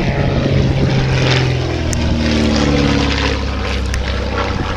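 Ryan Navion's piston engine and propeller droning as the plane flies past, its pitch falling as it goes by.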